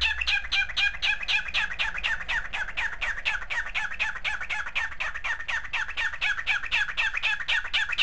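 Cockatiel giving a long, fast run of short, identical chirps, about six or seven a second, without a break.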